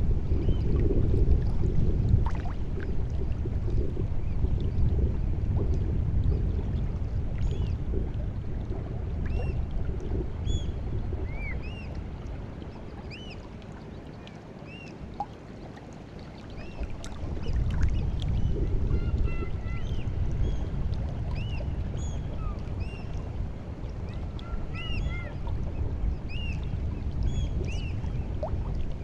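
Small sea waves lapping and washing at the shore of the White Sea during the incoming tide, swelling and easing, with a quieter lull about halfway through. Throughout, many short, high chirping bird calls sound over the water.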